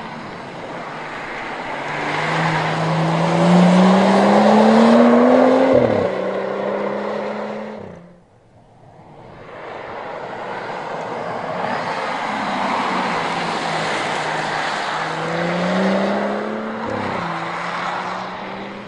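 BMW 4 Series Gran Coupé accelerating past twice. Each time the engine note climbs steadily, drops sharply at an upshift, then fades as the car drives away, over a haze of tyre and road noise.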